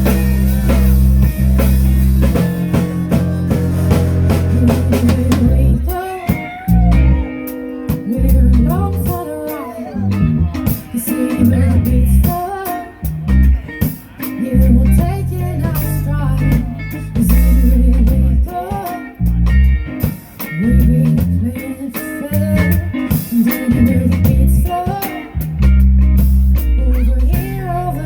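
A band playing a song, with a strong, steady bass line and drums. A singing voice comes in about six seconds in.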